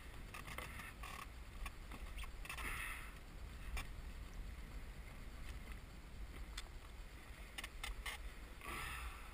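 A landing net holding a gilthead sea bream is lifted out of the sea and swung into an inflatable boat. Water splashes about two and a half seconds in, then there are scattered knocks and rustles of net and frame against the boat over a low steady rumble.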